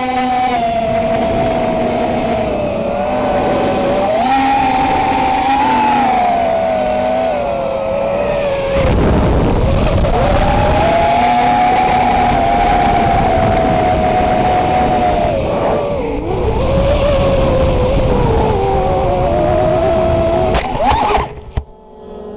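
Racing quadcopter's electric motors and propellers whining, the pitch rising and falling as the throttle changes, with a rush of air, heard from the drone's own camera. A louder rush swells about nine seconds in, and near the end there is a sharp burst before the sound drops away suddenly.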